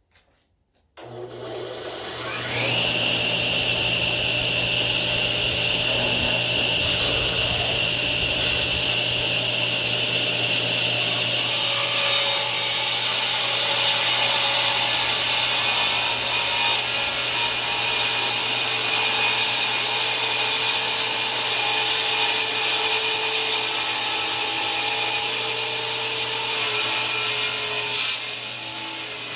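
Table saw switching on about a second in and spinning up with a rising whine to a steady run. From about eleven seconds in, the blade cuts through a live-edge mulberry board.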